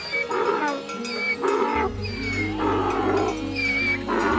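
Donkey braying: a run of hee-haw calls about once a second, over background music.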